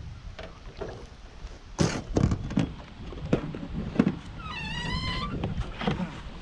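Oars working in the oarlocks of a small aluminum jon boat give several hollow knocks and clunks, with a short wavering squeal about four and a half seconds in. Wind rumbles on the microphone underneath.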